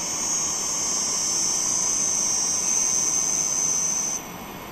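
Small AC motor on a SAKO variable frequency drive slowing down after a stop command, with a steady high-pitched electrical whine that cuts off suddenly about four seconds in as the drive stops its output.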